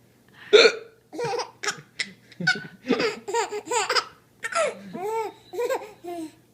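A four-month-old baby laughing in a quick string of short, loud bursts, the pitch rising and falling within each burst.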